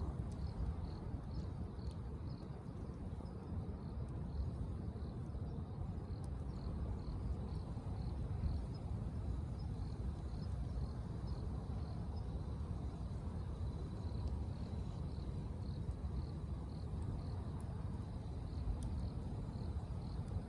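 Insect chirping in an even rhythm, about two high chirps a second, over a steady low rumbling noise.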